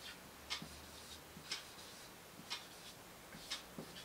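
A clock ticking faintly, one sharp tick about every second.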